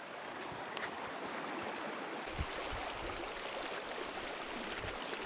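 Creek water rushing steadily, with a soft knock a little after two seconds in.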